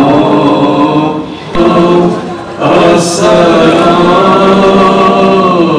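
A man's voice chanting in long, drawn-out melodic phrases, with two short breaks for breath about one and a half and two and a half seconds in.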